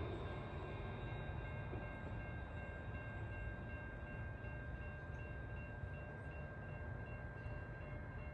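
Low, steady rumble of an electric tram running away along the track. Over it a faint high ding repeats rapidly and without a break, typical of electronic level crossing bells ringing for the tram.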